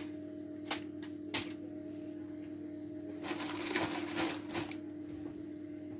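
Handling of an aluminium-foil parcel of fish and vegetables in a baking dish: three sharp clicks in the first second and a half, then a couple of seconds of crinkling and rustling. A faint steady low hum lies underneath.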